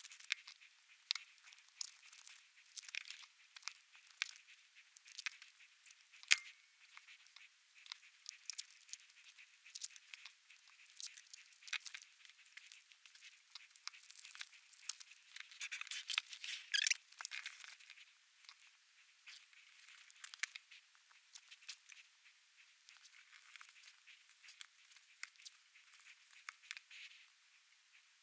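Faint crinkling of plastic wrappers and light clicks and taps as washi tape rolls are unwrapped and handled, busiest about halfway through.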